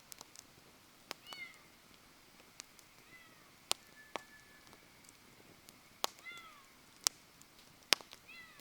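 Wood fire crackling, with irregular sharp pops. A short falling call, an animal's, sounds about four times among the pops.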